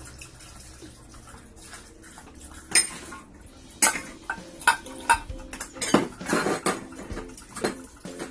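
Dishes being washed by hand at a kitchen sink: a metal pot, a glass and a pan lid clink and knock against the sink, with the tap running and water splashing. The clinks start a few seconds in and come about once a second.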